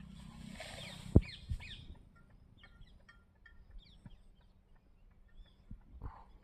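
Birds chirping in short, scattered calls, over a rustling hiss in the first two seconds with a sharp knock about a second in.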